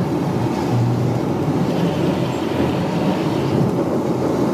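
Steady engine and tyre noise of a moving car, heard from inside the cabin: a low, even rumble.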